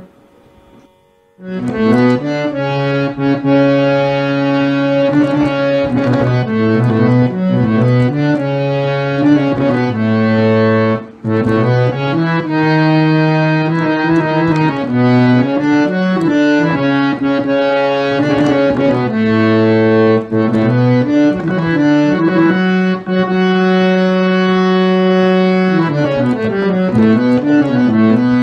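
Harmonium playing a melody of held notes that step from one to the next. It starts after a short pause about a second and a half in.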